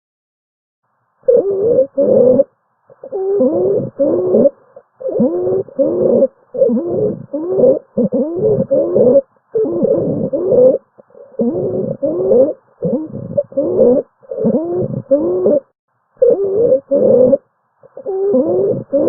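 Recorded abnormal lung sounds: musical breath sounds in repeated short bursts with silent gaps between them. Each burst carries several pitches at once, many sliding downward, the multi-tone musical quality of polyphonic wheezing.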